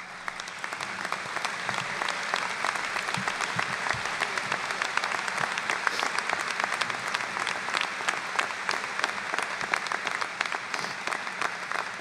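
Large audience applauding, the dense clapping swelling over the first couple of seconds, then holding steady and easing slightly near the end.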